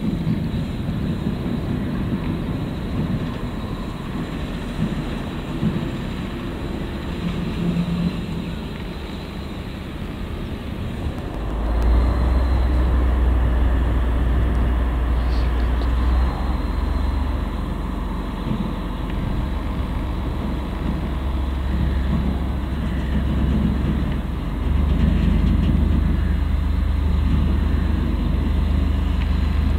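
Diesel shunting locomotive running as it moves slowly with a rake of covered freight wagons. About eleven seconds in, the engine note jumps to a louder, steady low drone, and it rises again about twenty-five seconds in.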